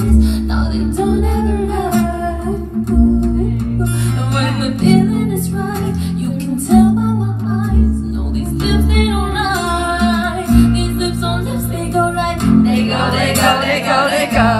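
A woman singing a pop song live into a microphone, with keyboard accompaniment and deep bass notes that change every couple of seconds.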